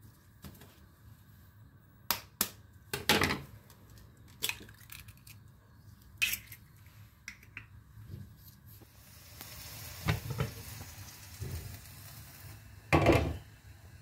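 Ceramic bowls and a knife knocking and clinking on a tabletop as an egg is cracked into a bowl. The sound is a string of separate knocks and clicks, loudest about three seconds in and again near the end, with a faint hiss in between.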